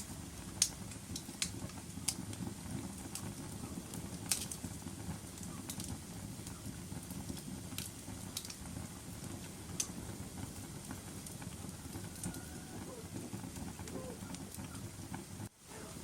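Wood fire burning in a fireplace: a steady low roar of flames with scattered sharp crackles and pops. The sound cuts out for a moment near the end.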